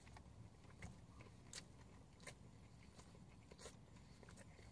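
Faint chewing and mouth sounds of people eating burritos, with a few soft, scattered clicks over a low hum in a car cabin.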